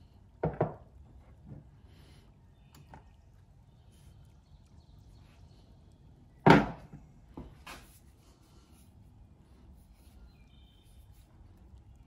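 Solid cast Nordic Gold metal pieces being handled on a wooden workbench and a plastic digital scale: an ingot set down with two quick knocks about half a second in, then a louder knock from the cast axe against the scale about six and a half seconds in, followed by two lighter taps.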